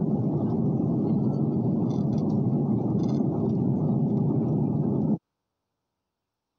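Steady jet airliner cabin noise in cruise flight, the even rush of engines and airflow heard from a window seat. It cuts off abruptly about five seconds in.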